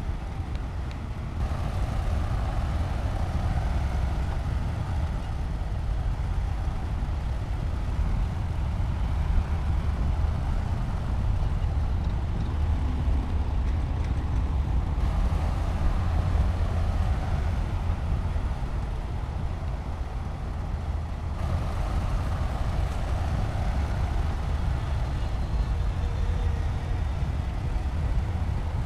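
Diesel engine of a SHANTUI bulldozer running steadily as the machine works, a continuous deep rumble whose mix shifts abruptly a few times.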